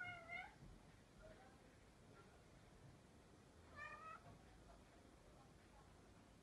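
Kitten meowing twice: a short meow right at the start and another about four seconds in, each rising slightly in pitch.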